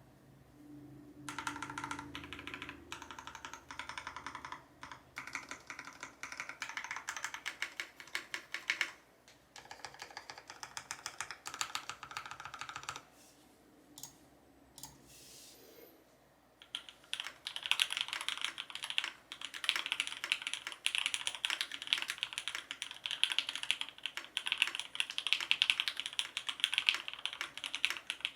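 Typing on a custom mechanical keyboard with H1 linear switches lubed with Krytox 205g0 and fitted with switch films, a rapid run of keystrokes. Typing stops for about three seconds in the middle, then resumes faster and louder.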